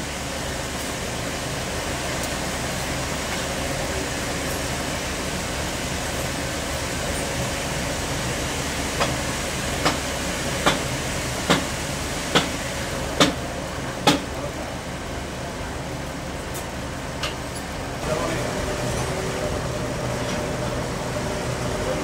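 Sawmill machinery running with a steady hum, with a run of seven sharp knocks about a second apart in the middle and a stronger, steadier engine hum picking up near the end.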